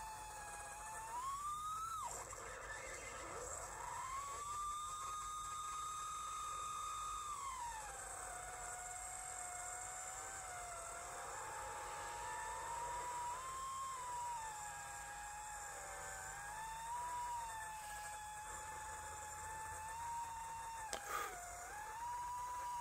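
Brushless motors of a Diatone GT2-150 mini-quad whining in flight, the pitch swinging up and down with the throttle. It jumps up and drops back near two seconds in, holds high for a few seconds, then falls to a lower wavering whine. There is a brief click near the end.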